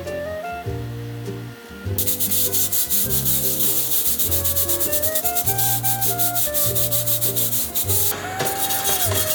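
Fast, repeated scraping or rubbing strokes start abruptly about two seconds in, over background music with a steady bass line.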